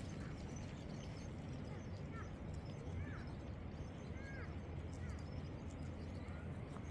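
Steady low rumble with a few short, high chirps between about two and five seconds in.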